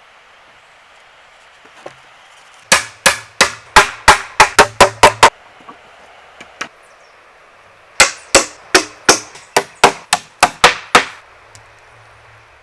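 Two runs of sharp tool strikes, eight or nine quick blows in each at about three a second, with a pause between the runs, over a steady hiss.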